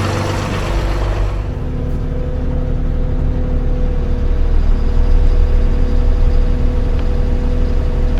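John Deere 8560 tractor's six-cylinder diesel engine running steadily with a deep, even drone. About a second and a half in, its note changes and it grows slightly louder.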